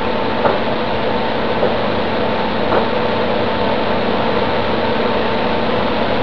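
Steady machine hum with a hiss, like a running fan, with three faint light knocks in the first three seconds.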